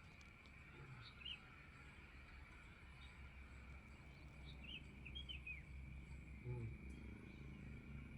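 Faint background: a steady high-pitched insect drone, with a few short bird chirps about a second in and again around the middle.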